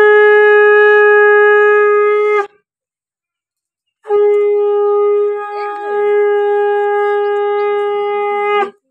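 Conch shell (shankha) blown in two long, steady blasts: the first ends about two and a half seconds in, and after a short silence the second starts about four seconds in and holds until near the end. It is blown as the auspicious call during the welcoming (boron) of a new bride.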